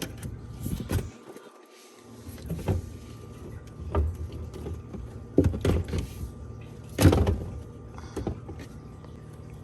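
Grocery items being handled and set down on fridge shelves: a run of irregular knocks and clunks, the loudest about seven seconds in, over a steady low hum.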